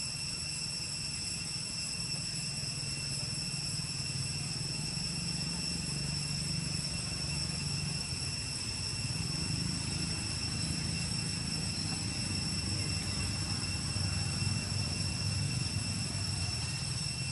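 Steady outdoor ambience: a constant high-pitched whine, made of several even tones, over a low rumble that grows a little louder in the second half.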